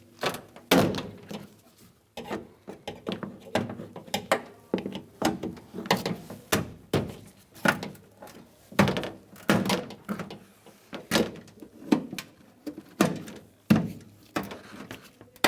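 Plastic trim tool prying the push-in panel retainers and trim panel off a Ford E-350 van's hinged cargo door: a long run of irregular knocks, clicks and pops, some with a short hollow ring from the door.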